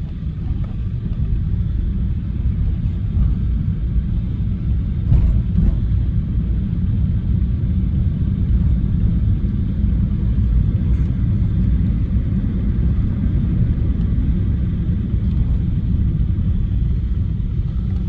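A car running, heard as a loud, steady low rumble.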